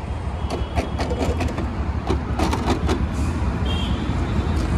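Steady low vehicle rumble with two runs of sharp clicks, the first from about half a second to a second and a half in, the second around two and a half seconds in.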